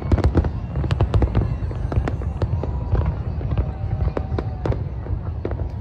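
Fireworks display going off: a quick string of sharp bangs and crackles over a steady low rumble, the bangs coming thickest at the start and thinning out a little after.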